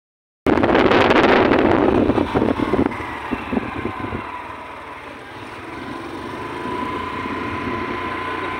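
Wind and running noise from a moving vehicle, heard through its open window. It cuts in after a brief dropout, with heavy wind buffeting on the microphone for about two seconds, then settles to a steadier rush of road and engine noise.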